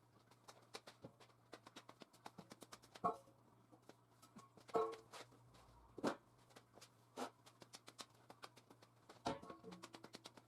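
Faint, sparse background music of single plucked notes about a second apart, over a run of light rapid clicks and a low steady hum.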